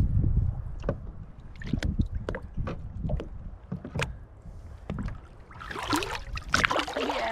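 Shallow salt water lapping and splashing against the side of a boat as a bonefish is held in the water and released, over a low rumble of wind on the microphone. A louder burst of splashing comes about six seconds in as the fish swims off.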